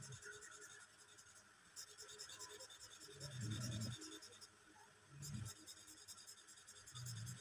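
Felt-tip pen scratching on paper in quick, short hatching strokes, quiet throughout. A few soft low bumps come in between, the loudest about halfway through.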